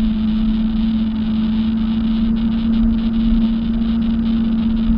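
Jet ski engine running at a steady speed, with a constant droning hum and no change in pitch.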